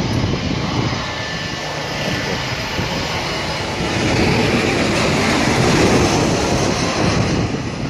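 Jet airliner engine noise, a steady rumble that grows louder about four seconds in as a Boeing 737 passes low overhead on final approach.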